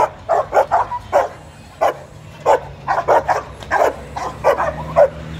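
A large black-and-tan dog on a rope barking over and over at someone in front of it, in a quick run of short barks, two to three a second.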